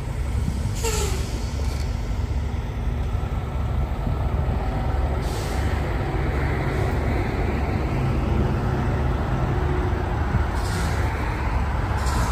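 Heavy diesel log truck idling steadily, a low, even engine hum.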